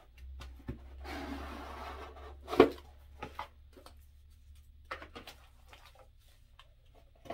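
Packaging being handled and unwrapped: a stretch of crinkly rustling from about a second in, one sharp knock shortly after, then scattered small clicks and rustles.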